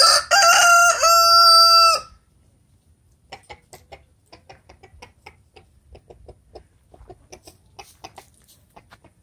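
A rooster crows loudly for about two seconds, in two parts with a short break in the middle. Then a chicken clucks softly in quick, short notes.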